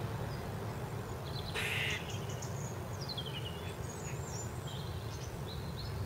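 A single harsh, hoarse call about a second and a half in, the loudest sound, followed by small garden birds chirping in thin, high, falling notes, over a steady low background rumble.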